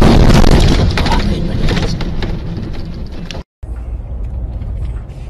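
Semi-truck and car crash: a loud crunching, scraping noise full of debris clattering and crackling, fading over about three seconds. It then cuts off, and a steady low rumble of a car on the road follows.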